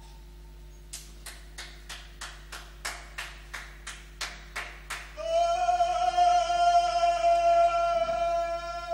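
A run of about a dozen sharp percussive strikes, roughly three a second and growing louder. About five seconds in, a voice starts singing one long, steady high note.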